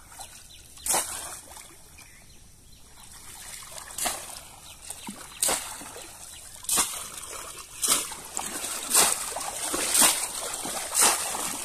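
Bamboo cone fish trap (polo) plunged again and again into shallow pond water, each stroke a sharp splash with trickling water between. The splashes come sparsely at first, then settle to about one a second and grow louder.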